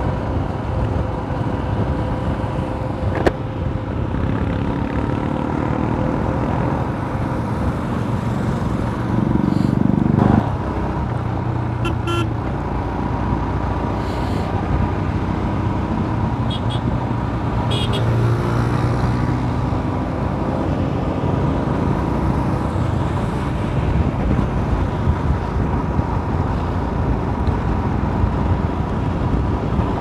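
A Royal Enfield Himalayan's single-cylinder engine running steadily at road speed under wind rush on the microphone. Short horn toots sound a few times around the middle.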